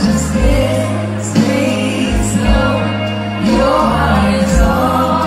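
A woman singing karaoke into a handheld microphone over a backing track with a steady bass line.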